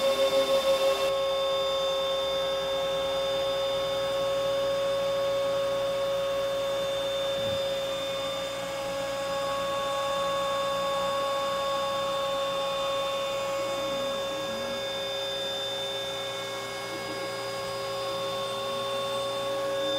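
Compact router serving as a CNC spindle, running with a steady high-pitched whine as its end mill cuts through a wooden board. Underneath it, the stepper motors give softer tones that slide up and down as the axes move.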